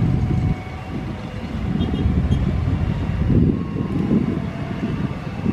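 Boeing 737's jet engines heard as a low rumble that swells and fades unevenly, with faint thin whining tones above it.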